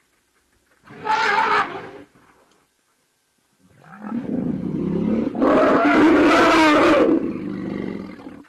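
African elephant trumpeting and roaring in alarm, startled by a lion: a short high blast about a second in, then a longer, louder roar that starts low and rises, lasting about four seconds.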